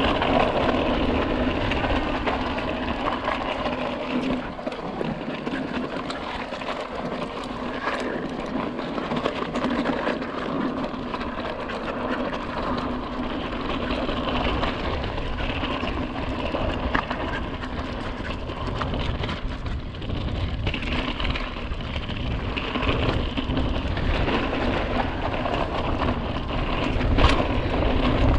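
Steady rushing wind noise on the microphone, with an even low hum underneath.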